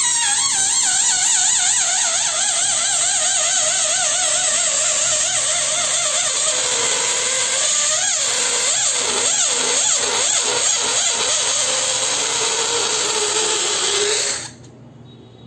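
Electric balloon pump blowing air into a balloon: a steady loud hiss with a warbling whistle that slides slowly down in pitch. About eight seconds in, the whistle breaks into a quick pulsing warble, then slides down again and stops abruptly near the end.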